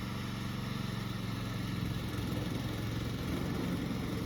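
Petrol engine of a remote-control lawn mower running steadily.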